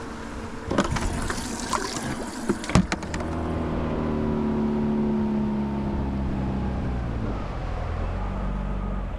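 A few knocks and clatters in the boat, then a jon boat's outboard motor running steadily from about three seconds in, its pitch sinking a little.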